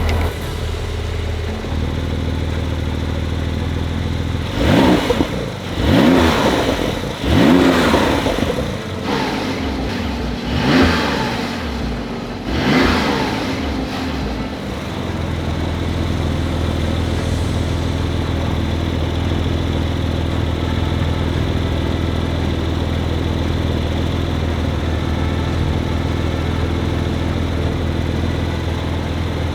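Porsche 911 Turbo (992)'s twin-turbo flat-six idling, then revved in a series of short throttle blips, each rising and falling in pitch, before settling back to a steady idle about halfway through.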